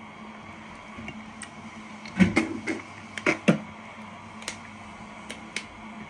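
Packaging being picked and peeled open by fingers: a quick cluster of sharp crackles and clicks about two to three and a half seconds in, then a few faint ticks, over a steady background hum.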